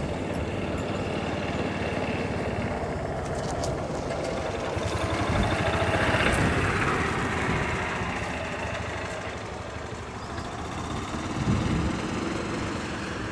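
Wind buffeting the camera microphone: a steady low rumble that swells about six seconds in and again near the end.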